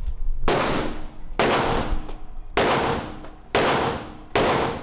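Five 9mm pistol shots fired one after another, about a second apart, each followed by a long ringing tail.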